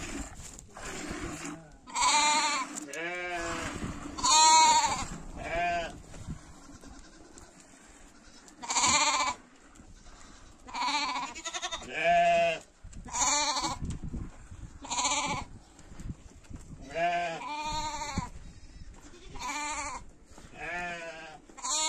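Goats bleating over and over, about a dozen short calls, each bending up and down in pitch.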